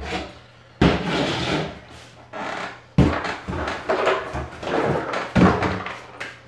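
Cardboard shipping box being handled and lifted off a table, with a plastic spray bottle set down: three sudden knocks about a second, three seconds and five and a half seconds in, each followed by cardboard scraping and rustling.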